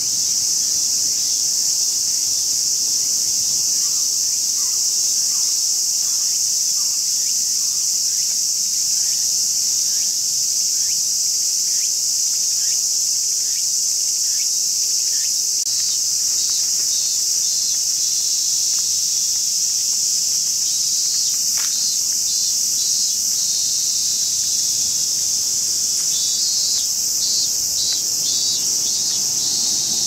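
Cicadas buzzing in a dense, steady chorus that never breaks. In the second half a great tit sings several short runs of quickly repeated notes over it.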